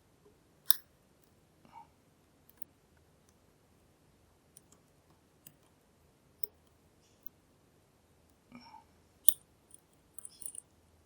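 Scattered small metallic clicks and taps of a lock pick and tension tool working the pins of a NEMEF NF4 dimple lock. The two loudest, sharpest clicks come about a second in and near the end, followed by a quick run of small clicks.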